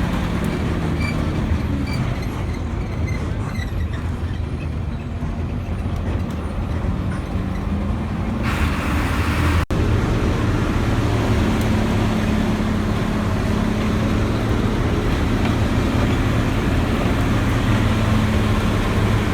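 A motor vehicle's engine running steadily with road noise, heard from on board, with a sudden cut about halfway through after which the low engine hum is stronger.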